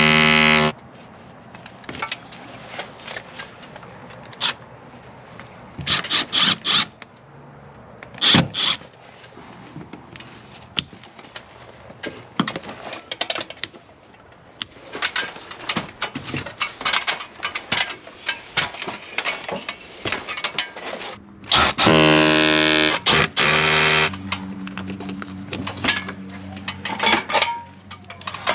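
Cordless drill running in short bursts, drilling holes into a stucco wall, with the longest, loudest run near the end; clicks and knocks of handling tools and hardware in between.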